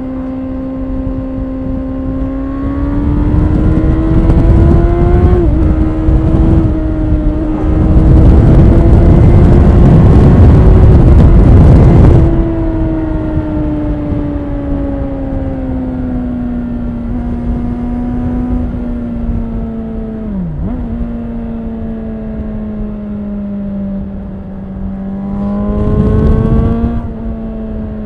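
A 2013 Honda CBR600RR's inline-four engine with stock exhaust, heard on board from the rider's backpack while riding. The note climbs under acceleration and is loudest for about four seconds midway. It then sinks slowly as the throttle closes, and surges again briefly near the end. Several short, sharp dips break the note along the way.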